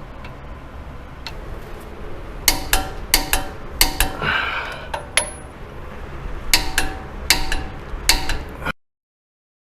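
Torque wrench on the front brake caliper bracket bolts, being torqued to 130 foot-pounds: a dozen or so sharp, ringing metallic clicks, several in quick pairs. The sound cuts off suddenly near the end.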